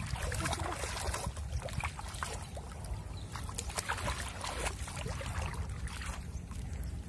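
Shallow water splashing and sloshing as someone wades through it and grabs at a fish by hand, with a steady low rumble underneath.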